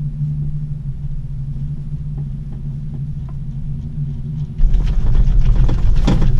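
Gondola lift cabin riding the haul rope with a steady low hum, then from about four and a half seconds in a louder rumbling with a run of sharp clacks as the cabin passes over the support tower's roller sheaves.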